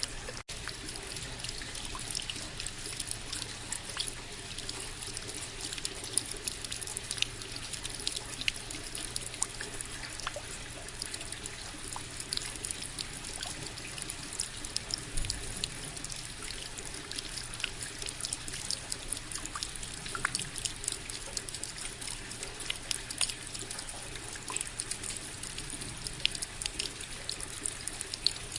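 Steady rain: an even hiss of falling water dotted with many separate drops ticking. There is a momentary gap in the sound about half a second in.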